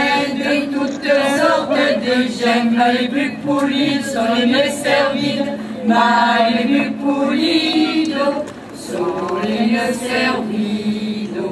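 A mixed group of men and women singing a folk song together, unaccompanied, with a brief break about eight and a half seconds in.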